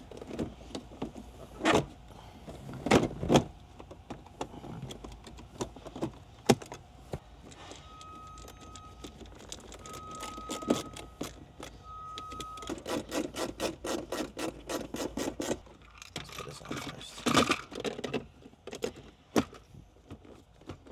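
Plastic centre-console trim being handled and snapped back into place around the shifter and parking-brake lever: scattered knocks and clicks. About halfway through come three short steady beeps of the same pitch, followed by a fast run of clicks.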